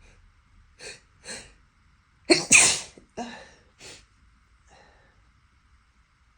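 A person sneezing, set off by sniffing a strong musky-rose scented candle: two short catching breaths, then one loud sneeze a little over two seconds in, followed by two shorter bursts.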